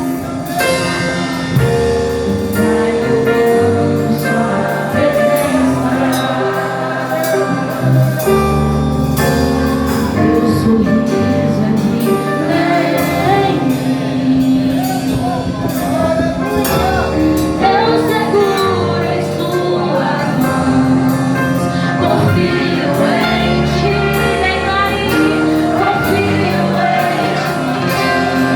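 Background music: a song with singing over instrumental backing, gospel-like in style.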